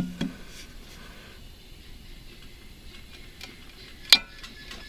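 Faint metal tool clinks and one sharp metallic clank about four seconds in, from a wrench extended with a cheater pipe being worked against a seized blade bolt on a mower deck spindle.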